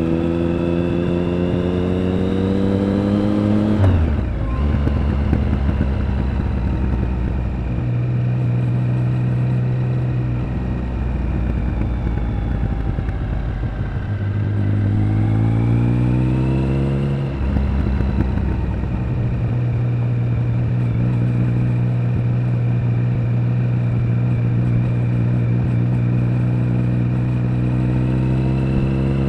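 Triumph Speed Triple 1050's three-cylinder engine and exhaust under way: it pulls up in pitch for the first few seconds, then the note drops sharply. It climbs again for a few seconds in the middle, drops once more, and then settles into a steady cruising note.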